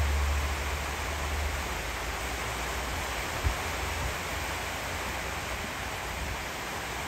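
Steady rushing outdoor ambience, with a low rumble during the first second or so and one brief thump about three and a half seconds in.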